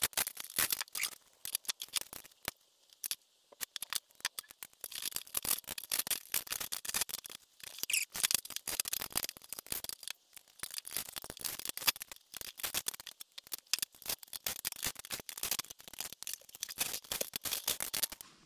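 Dense, irregular clicking and clattering of small screws, metal brackets and plastic panels being handled as a saw blade guard is dismantled with a cordless driver.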